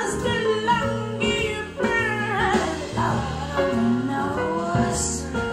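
Recorded music played back through a pair of Fyne Audio F500 loudspeakers: a melodic lead that bends in pitch over guitar and a steady bass line.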